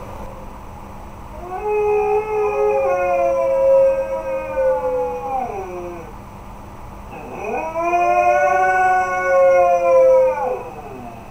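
Two huskies howling together in two long howls of four or five seconds each. Each howl drops in pitch as it ends, and the second also rises at its start.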